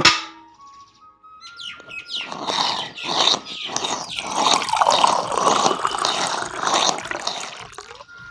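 Water gushing in spurts from a miniature hand pump into a small tin bucket as the pump handle is worked, from about a second and a half in until near the end. It opens with a sharp clink as the tin bucket is set down on the pump's basin.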